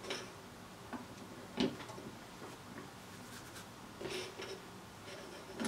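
A few small clicks and knocks of a circuit board being taken out of a metal helping-hands clamp and handled on a cutting mat, the sharpest knock about a second and a half in and a short cluster about four seconds in.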